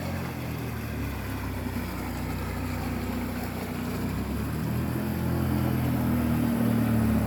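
A motor vehicle's engine running, growing steadily louder as it comes closer.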